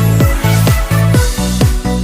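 Electronic dance music with a steady kick drum beating about twice a second over a sustained bass line.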